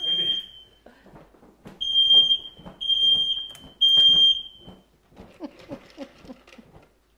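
Kitchen smoke alarm sounding a loud, high-pitched beep four times, then going quiet about five seconds in. It is a false alarm set off by the cooking: chicken stock had just gone into the hot skillet, and the alarm is being fanned with a towel.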